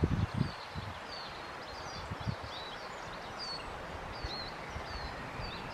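Outdoor ambience with several birds singing: a scattered run of short, high chirps and whistles over a steady background hiss. A few low thumps near the start and again around two seconds in, the loudest moments.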